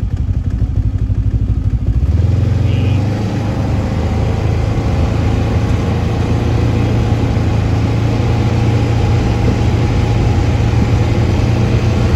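Snowmobile engine idling with a rapid low throb, then speeding up about two seconds in and running steadily as the machine moves off through deep snow.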